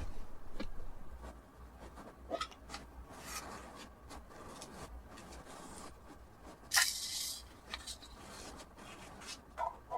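Packaging being handled and rustled by hand during order packing, with scattered soft knocks and one brief, louder rustle about seven seconds in.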